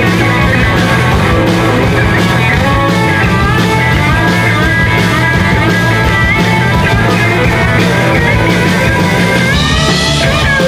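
Live rock band playing, led by an electric guitar solo with bent notes over bass and drums; near the end the guitar slides up in a long rising bend.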